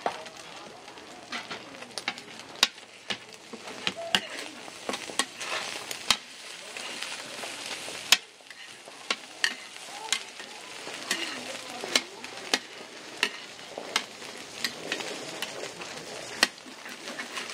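Egg and glass-noodle batter sizzling on a flat-top griddle. A metal spatula strikes and scrapes the plate as the egg is chopped and turned, making sharp, irregular clacks about once or twice a second.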